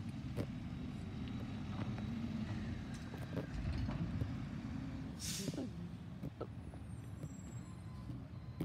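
Garbage truck a little way off: steady low diesel rumble with a few faint knocks, and a short air-brake hiss about five seconds in.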